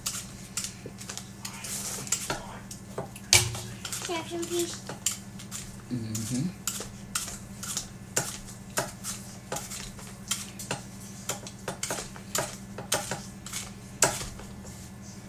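Apples being peeled by hand with a small blade: irregular scrapes and sharp clicks of the blade against the fruit and utensils, over a steady low hum.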